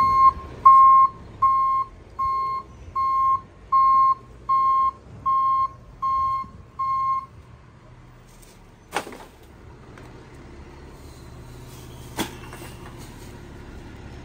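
Garbage truck's back-up alarm beeping about ten times, roughly one and a half beeps a second, over the low hum of the idling truck; the truck is reversing. The beeping stops about seven seconds in, and two sharp knocks follow a few seconds apart.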